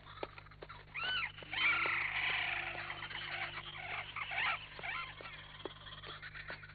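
Forest animal cries in a cartoon soundtrack: a screech that rises and falls about a second in, then a dense chorus of chirping and squealing calls for several seconds. Steady footsteps run underneath, about two or three a second.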